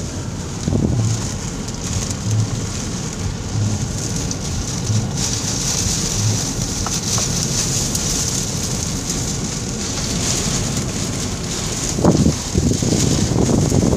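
Heavy storm rain pelting a car, heard from inside: a steady hiss of rain on the roof and glass, with soft low thumps about every second and a half through the first half. A louder burst of low rumbling comes about twelve seconds in.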